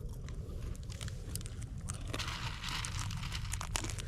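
Campfire crackling with sharp pops, and a steady hiss joining about two seconds in.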